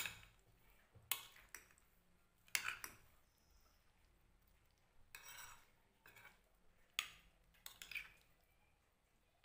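Steel spoon stirring chopped vegetables and curd in a glass bowl, clinking and scraping against the bowl at irregular moments, about eight times.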